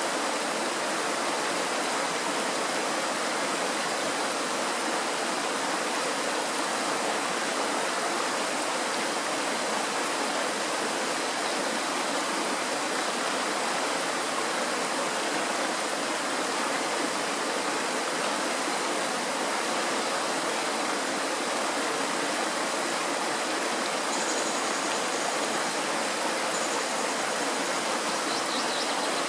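Tatra mountain stream rushing over rocks in a small cascade: a steady, even rush of water that does not change.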